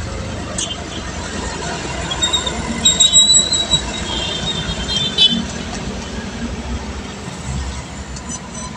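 Road and wind noise from a motorcycle ride in traffic, a steady low rumble, with a high-pitched squeal about two and a half seconds in and again around five seconds.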